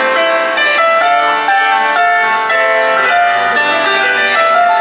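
Electronic keyboard played live through a pair of PA speakers: a slow melody of held notes, changing about every half second, over sustained chords.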